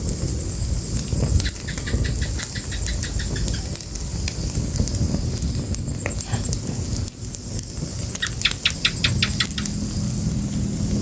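Fire crackling with a steady low rumble and scattered sharp pops. Twice, a quick run of short high ticks, about six a second, comes through: once early and once about eight seconds in.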